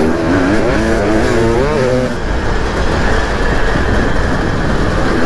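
Dirt bike engine being ridden hard, its pitch rising and falling with the throttle over the first two seconds, then running on under a heavy rough rumble.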